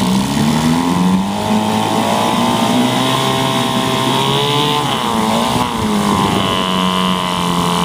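1972 Evinrude 4 hp Lightwin two-stroke twin-cylinder outboard running in a test tank, revved up on the throttle but not to full throttle. Its pitch climbs early on, drops sharply about five seconds in, then rises and holds again.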